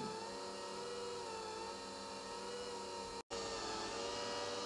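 Philips electric pasta maker running: a steady motor hum whose pitch wavers slightly as the paddle kneads the dough and pushes it out through the lasagna die. There is a momentary break in the sound a little over three seconds in.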